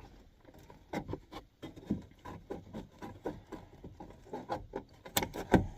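Irregular knocks, scrapes and rustling from someone shifting about and handling materials in a cramped crawlspace. A couple of louder knocks come near the end.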